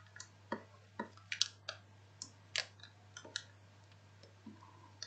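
Faint, irregular clicks and taps, a dozen or so, from a stylus on a pen tablet as letters are handwritten onto a diagram. A faint steady low hum runs underneath.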